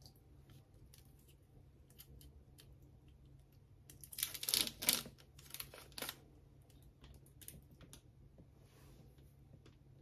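Thin plastic film crackling as it is peeled off a tray of silken tofu, loudest for about two seconds a little before the middle, with light clicks of the plastic tray being handled around it.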